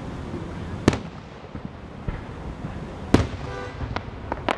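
Aerial fireworks shells bursting: two sharp booms, about a second in and again just past three seconds, then a few quick crackling pops near the end.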